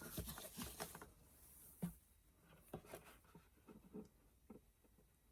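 Faint, scattered scratching and light taps of a glue brush and fingers working material onto a box with Mod Podge.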